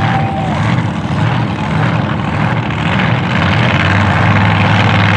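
Mega truck's big engine running at the start line, a deep steady drone that gets louder in the last couple of seconds as it builds revs to launch.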